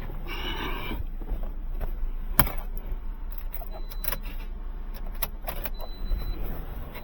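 Metal clicks and clinks of hand tools and parts being handled at a car's battery terminals, with one sharp knock about two and a half seconds in and a run of lighter clicks after it, over a steady low rumble.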